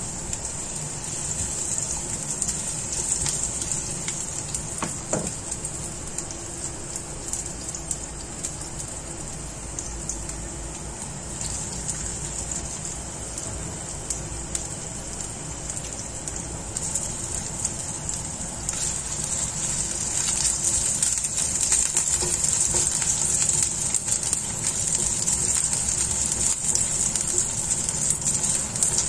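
Garlic and chopped vegetables sizzling in hot oil in a nonstick frying pan, a steady sizzle with small crackles that gets louder about two-thirds of the way through.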